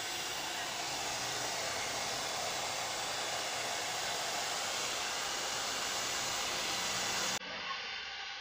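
Handheld hair dryer blowing a steady rush of air while a boy's hair is styled with a round brush. About seven seconds in the sound drops abruptly to a quieter, duller rush.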